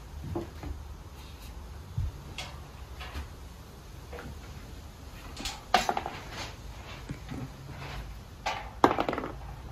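Metal fire pit parts and hardware knocking and clinking as they are handled and fitted together by hand. There are scattered light taps, with two louder clattering clusters, one past the middle and one near the end.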